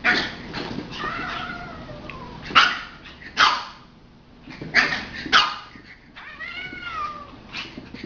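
A dog barking about five times in short, sharp barks, with two drawn-out, arching higher-pitched cries between them, one about a second in and one near the end, during a cat-and-dog play fight.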